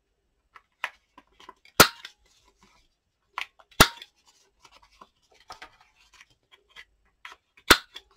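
Corner rounder punch snapping through card stock: three sharp snaps, with small ticks of paper being handled between them.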